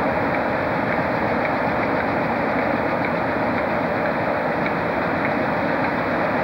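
Diesel locomotive hauling a train of loaded hopper wagons at walking pace, its engine running steadily.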